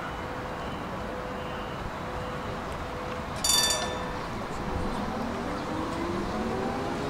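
Tram at a standstill with a steady electrical hum. Halfway through comes a short, bright ringing chime, the loudest moment. After it the traction motors begin to whine, rising in pitch as the tram pulls away.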